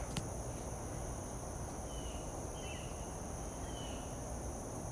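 Steady high-pitched trilling of a summer insect chorus in a garden, over a low outdoor background hiss. Three short, faint chirps are heard about two, two and a half, and three and a half seconds in.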